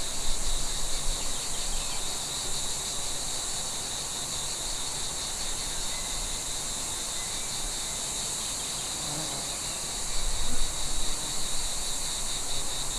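Steady high-pitched chorus of grasshoppers, with a few faint bird chirps. A low rumble of wind comes up about ten seconds in.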